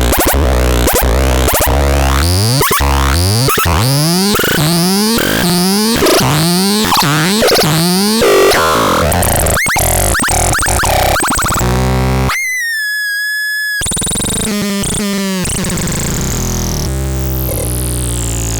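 Electronic synthesized tones from the TALPALAX being demonstrated: a rapid series of rising pitch sweeps, a little under two a second, then a clean steady tone for about a second and a half, then a slow falling glide near the end.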